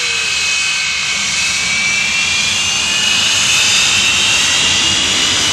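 Hawker Hunter jet taxiing, its jet engine running with a steady high whine over a rushing noise; the whine rises slowly in pitch.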